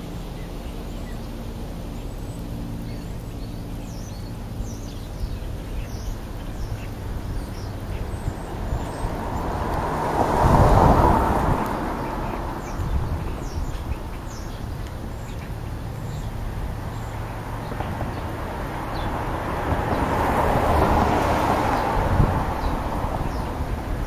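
Two vehicles passing on a road, each swelling up and fading away, about ten seconds apart, over a steady low hum. Faint high bird chirps come in the first several seconds.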